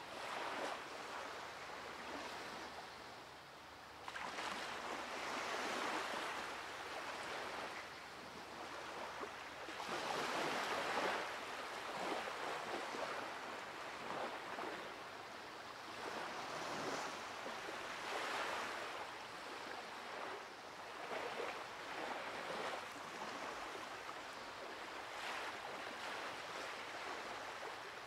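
Ocean surf washing onto a beach, swelling and easing every few seconds.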